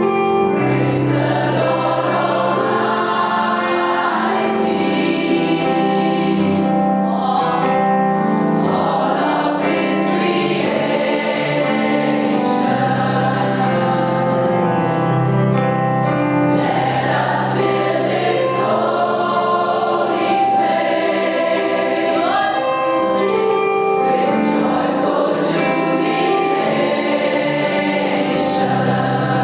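Gospel choir singing with instrumental accompaniment, a steady full sound of many voices over band backing.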